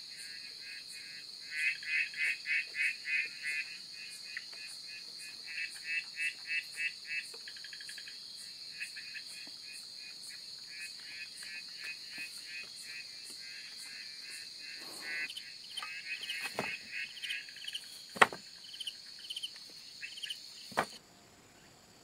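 Forest insects and frogs: a steady high-pitched insect drone, with repeated bouts of rapid pulsed chirping calls. Late on come a few sharp clicks or knocks, then the sound cuts off abruptly about a second before the end.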